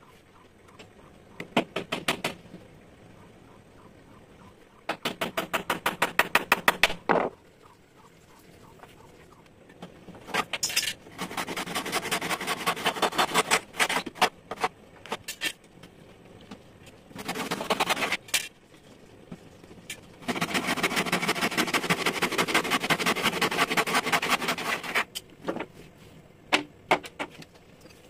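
Hand saw cutting wood, in several bursts of quick, short, evenly repeated strokes with pauses between, the longest bursts lasting three to four seconds.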